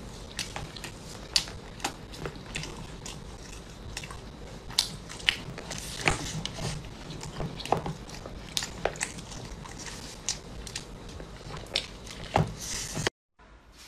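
Close-up eating sounds of a person biting into and chewing a whole cooked lobster: about a dozen sharp cracks and crunches of shell and meat over wet chewing. The sound stops abruptly near the end.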